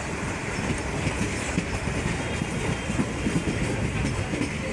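Passenger train coach running along the track, heard from the open doorway: a steady rumble of wheels on rails with small irregular knocks.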